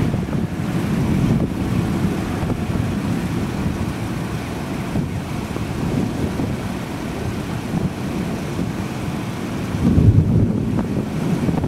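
Gusty wind buffeting the microphone: a loud, low, fluctuating rush, with a stronger gust about ten seconds in.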